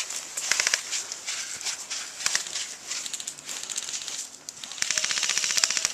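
Airsoft electric guns firing full-auto bursts, a fast even rattle of shots: a short burst about half a second in and a longer burst of about a second near the end, with scattered single clicks and rustling between them.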